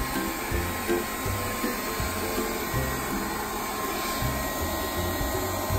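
Small handheld leaf blower running steadily with a whir, blowing sand off a trampoline mat, under background music with a steady beat.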